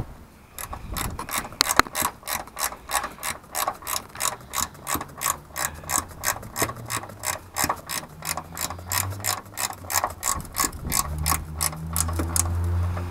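Ratchet wrench clicking in steady strokes, about four clicks a second, as the strut brace's mounting nut on the front strut top is tightened. A low hum comes in near the end.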